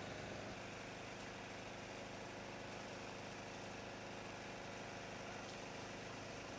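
Fire truck's engine idling steadily, a continuous low hum.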